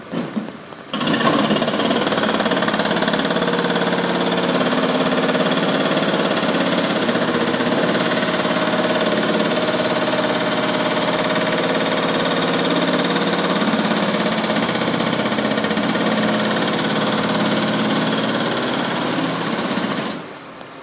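A steady engine running, loud and even, with a few held tones over a wide hiss; it starts abruptly about a second in and cuts off just before the end.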